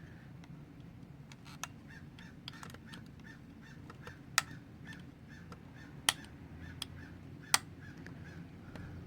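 Sharp metallic clicks and small scrapes of a thin knife blade prying a broken headphone plug tip out of an Xbox One controller's headphone jack. There are a handful of separate loud clicks over several seconds, over a steady low hum and a faint chirp repeating about three times a second.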